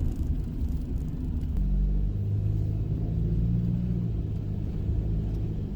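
A car driving steadily, its engine and tyres making a low rumble. A steady low engine hum grows stronger about one and a half seconds in.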